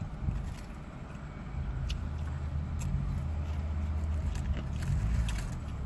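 Steady low rumble of an idling car heard inside the cabin, with scattered small wet clicks of someone eating and licking their fingers.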